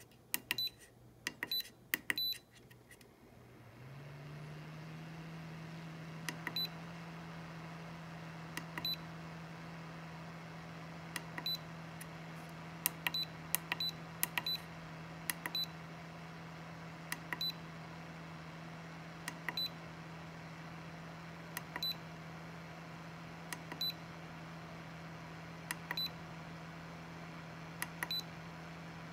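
Short high beeps from an Atorch DL24 electronic load's front buttons, one every second or two as the discharge current is stepped up. About four seconds in, the load's heatsink cooling fan starts and then runs steadily with a low hum under load.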